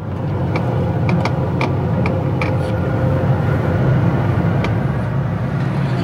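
Steady low rumble of a moving vehicle, with light clicks about twice a second in the first half and one more near the end.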